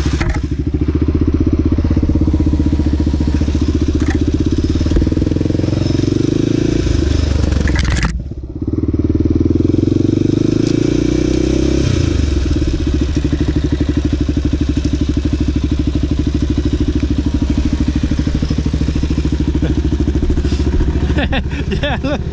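Honda 400EX ATV engine running steadily under throttle. About eight seconds in the throttle closes briefly, then the engine picks back up and rises in pitch.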